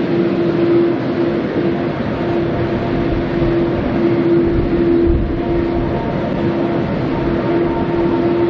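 A Boeing 787-9's GE GEnx-1B turbofan engines at taxi idle: a steady jet whine over an even rush of noise.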